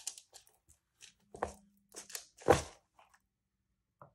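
Cured resin coasters being popped out of a silicone mold by hand: a few short crackling peels and clacks, the loudest about two and a half seconds in.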